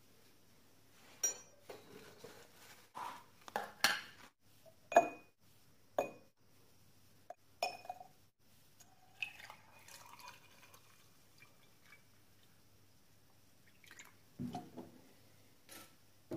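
Lumps of ferric chloride dropped from a spoon into a glass tumbler, clinking sharply against the glass about six times. Then liquid is poured in, with a faint rising tone as the glass fills, and a low knock near the end.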